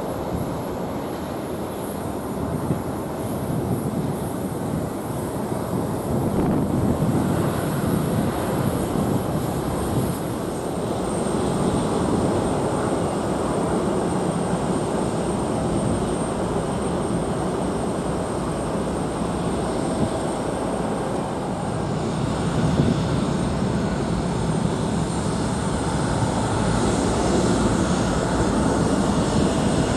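Twin-engine jet airliners landing, their engine noise a steady, continuous rush with no sharp events.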